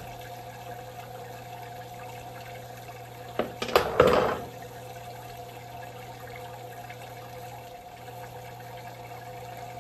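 Water from a submersible pump running steadily through a 3D-printed hydroponic tower and trickling back into its bucket reservoir, with a low steady hum. A short, loud clatter of knocks comes about three and a half seconds in.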